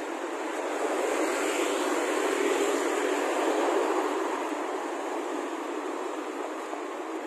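Road traffic passing close by on a multi-lane highway: a steady rush of car tyres and engines that swells as vehicles go by, loudest around the middle, then eases.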